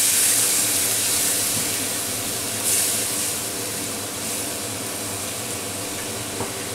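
Fried masala paste in a non-stick pan sizzling and hissing with water just added, stirred with a wooden spatula. The sizzle fades gradually, with a short louder flare about three seconds in.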